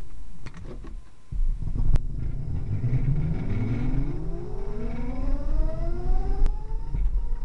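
Brushless hub motors of the Ripperton Mira electric car whining as the car accelerates, a stack of tones rising steadily in pitch for about four seconds, then levelling off near the end. Underneath is a low rumble of tyres on the road, with a few clicks in the first two seconds.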